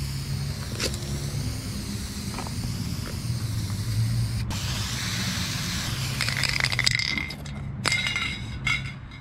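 Aerosol spray paint can (MTN 94) hissing steadily as it sprays through a wide Transversal fatcap. The spray stops about seven seconds in, followed by a couple of knocks.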